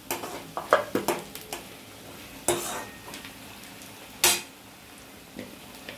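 Sliced onions sizzling in hot oil while a steel spoon stirs them, scraping and clinking against the pan: several strokes in the first second and a half, the loudest about four seconds in. The onions are still pale, early in being softened.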